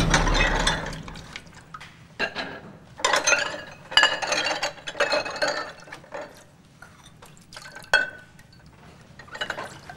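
Dishes being washed by hand in a sink: crockery and utensils clink and water splashes, with scattered clatters from about two to six seconds in and one sharp clink near eight seconds. A loud music sting fades out in the first second.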